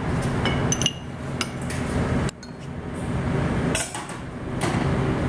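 Kitchenware clinking a few times over a steady low hum.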